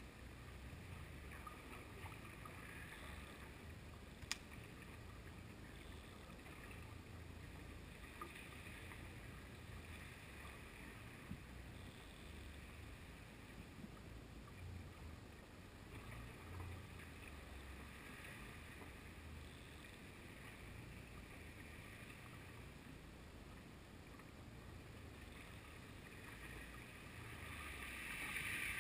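Faint, muffled underwater rumble picked up by a GoPro in its waterproof housing on a jigging line, with a few small clicks, one sharper click about four seconds in. A hiss grows louder near the end.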